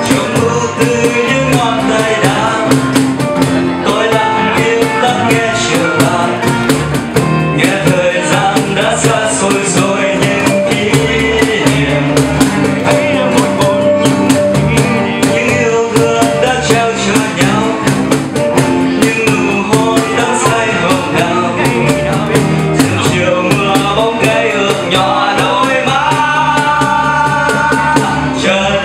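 Music: a cover of a Vietnamese pop song, with guitar and a steady drum beat under a melody line.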